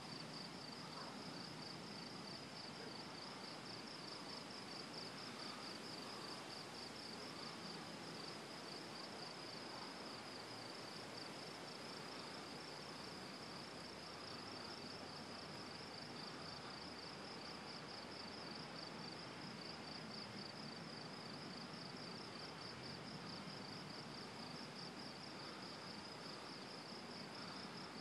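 Night insects trilling in a steady, high-pitched, rapidly pulsing chorus over a faint even hiss.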